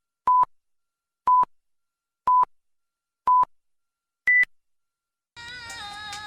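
Five short electronic beeps about a second apart, the first four at the same pitch and the fifth higher, like a countdown. Music comes in near the end.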